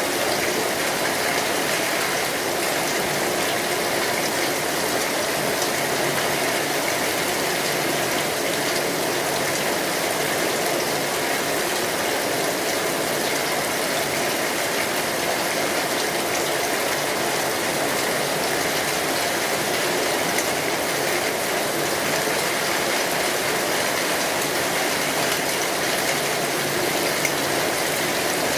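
Steady rain drumming on an umbrella canopy: a dense, even patter of drops that never lets up.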